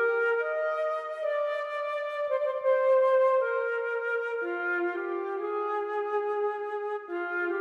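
Background music: a slow melody of long held notes, changing pitch every second or so.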